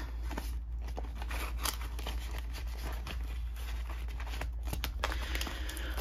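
Hands handling the clear plastic envelope pages of a ring binder: soft rustling with a few light, short clicks, over a steady low hum.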